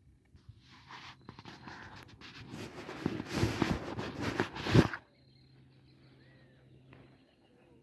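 A hooked fish thrashing and splashing at the water's surface on a fishing line, building over about five seconds to its loudest near the end, then cutting off abruptly.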